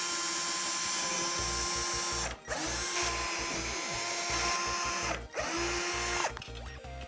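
Cordless drill running in three bursts, the middle one about three seconds long, boring into the plastic kayak hull; its motor whine holds a steady pitch and drops away each time the trigger is released. A low, even music beat plays underneath.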